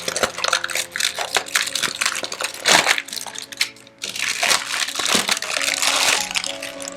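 Packaging being opened by hand, crinkling and crackling in irregular bursts with a brief lull about halfway through, over soft background music.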